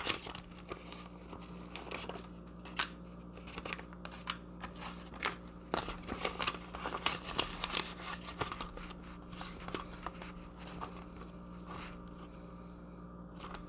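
Paper bills and clear plastic zipper pouches in a ring-binder cash wallet being handled and flipped: irregular crinkling and rustling with small clicks, thinning out near the end.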